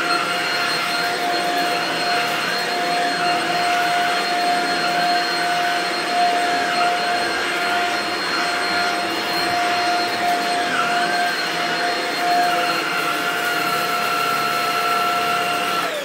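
Shark Rocket DuoClean stick vacuum running steadily over carpet, a constant high whine over a rushing airflow hiss. At the very end it is switched off and the whine starts to fall in pitch as the motor spins down.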